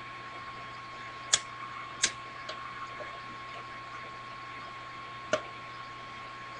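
Steady hiss with a thin high whine, broken by four sharp clicks and taps, the loudest about a second in, two seconds in and near the end, as a plastic soda bottle is handled and drunk from.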